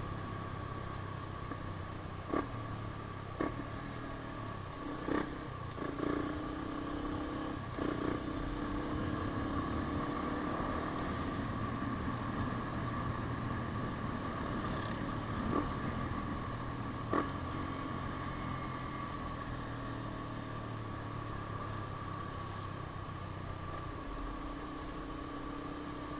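Yamaha Sniper 150's single-cylinder four-stroke engine running steadily through an aftermarket JVT exhaust pipe, with several short sharp clicks in the first half.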